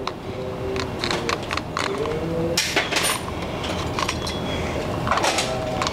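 Plastic tube being twisted and pushed down over the internal circuit board of a cone penetrometer: scraping and small clicks of plastic rubbing against metal, with a few short squeaks and one longer scrape about halfway through.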